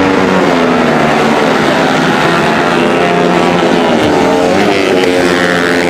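Several tuned Honda CRF150L supermoto bikes racing, their single-cylinder four-stroke engines revving. Several engine notes overlap, rising and falling in pitch as the bikes accelerate and shift.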